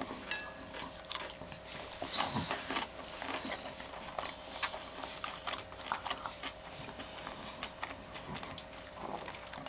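Mouth sounds of eating close to the microphone: chewing with many small crisp clicks and crunches, over a faint steady hum.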